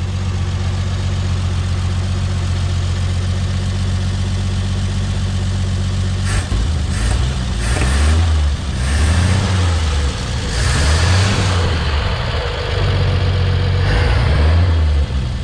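1957 Chevrolet pickup's engine idling steadily, then revved again and again from about six seconds in, its pitch rising and falling with each blip of the throttle.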